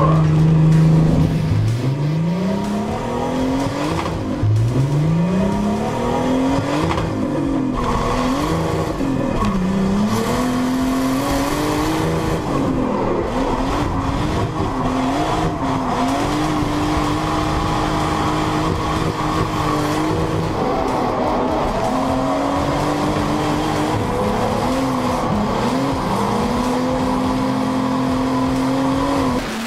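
Turbocharged BMW M30 straight-six in a drift car revving hard: its pitch climbs steeply twice in the first few seconds, then rises and drops again and again with throttle changes, held steady for a few seconds at a time, with tyres squealing as the car drifts.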